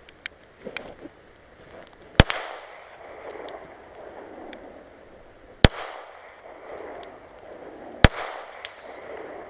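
Three single shots from a Glock pistol, spaced about three seconds apart, each with a short echoing tail. A few fainter sharp cracks come in the first second.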